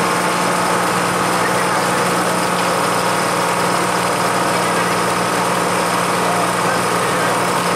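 A boat's engine running steadily at a constant speed, an even drone with no change in pitch.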